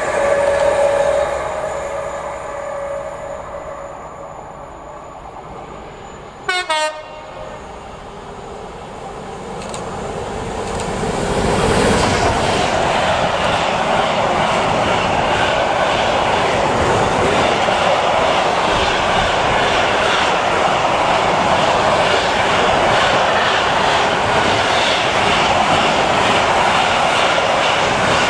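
A train horn sounds two short blasts, then a freight train passes close by at speed. Its wagons' wheels rumble and clatter steadily on the rails.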